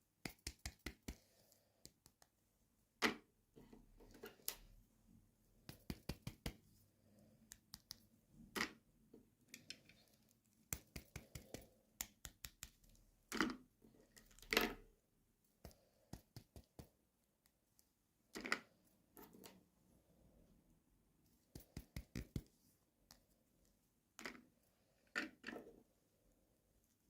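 Small plastic toy pieces and packaging handled and set down: bursts of rapid clicks and taps, with a handful of louder single knocks.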